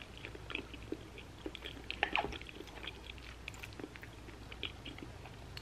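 A person chewing a mouthful of cooked cabbage close to the microphone, with small wet mouth clicks and a denser run of crackly chewing about two seconds in.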